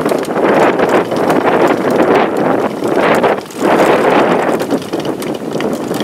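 Strong, gusty northwest wind buffeting the microphone, easing briefly about three and a half seconds in, with many faint clicks through it.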